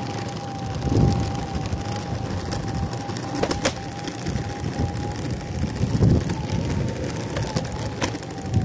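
Meepo electric skateboard being ridden: the hub motors whine at a steady pitch that wavers with speed over a rumble of wheels on pavement, with a crinkly, clinkly rattle and a few sharp clicks from the right rear hub motor. The rider suspects something loose in it, the motor slapping, or a bearing going bad.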